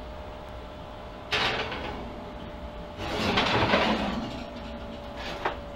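A casserole dish being put into an electric range's oven: a sudden clunk about a second in, a longer scraping rattle of the dish against the metal oven rack around three seconds in, and a short click near the end.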